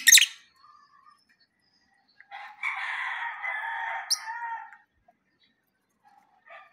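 A rooster crows once, a single drawn-out call of about two seconds in the middle of the stretch. A short, shrill bird chirp cuts across it near its end.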